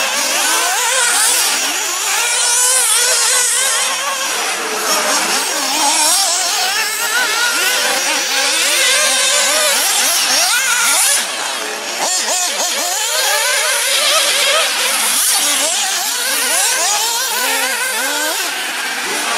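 Several 1/8-scale nitro off-road RC buggies' small two-stroke glow engines revving hard as they race, their high-pitched whines rising and falling and weaving over one another.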